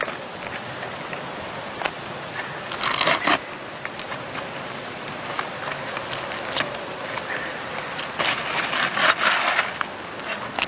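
Asphalt roof shingles being pried loose and pulled up with a flat bar: scraping and crackling, with louder scrapes about three seconds in and again for a second or so near the end, and scattered clicks.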